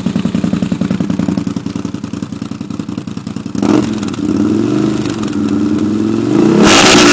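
Can-Am Outlander Max 1000 XT-P's V-twin engine running through a Muzzy dual exhaust. It idles with a quick, even beat, is revved up about three and a half seconds in, and is then blipped hard to its loudest near the end.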